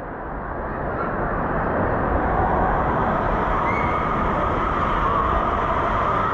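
Steady din of an indoor water park: running water from the slides mixed with crowd noise, fading in over the first couple of seconds.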